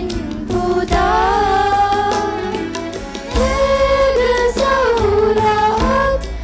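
Children's choir singing a Sinhala Buddhist devotional song in unison, with a girl's voice leading through a microphone over instrumental backing with a steady beat.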